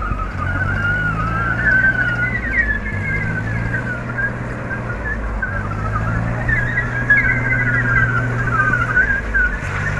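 Diesel tractor engines running at low speed, a steady low hum. A high wavering tone runs over it.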